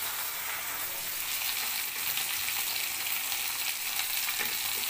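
Chopped onion, green chilli and tomato sizzling steadily in hot oil in a kadhai, stirred with a steel spatula, with a faint scrape or knock of the spatula about four and a half seconds in.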